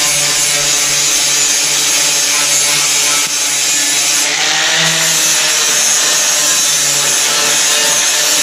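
Corded angle grinder with a sanding disc running against rusty sheet-steel dash metal: a steady motor whine under a harsh sanding hiss, the pitch dipping briefly about halfway through. The rust is being sanded off to expose the spot welds.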